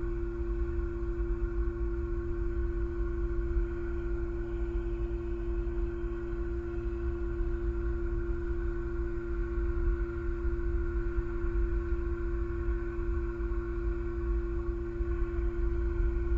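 Steady hum made of several fixed tones over a constant low rumble, unchanging throughout, with no bird calls.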